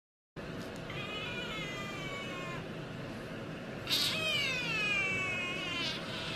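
White cat meowing: two long, drawn-out meows that slide down in pitch, the second one louder, with a third beginning at the very end. The cat is begging for food it is watching being peeled.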